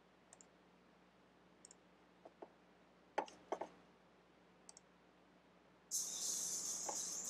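Light mouse clicks, a few of them in pairs. About six seconds in, a steady high hiss begins: the FM-demodulated audio of an RTL-SDR receiver starting up, tuned to no strong station, so only static comes through.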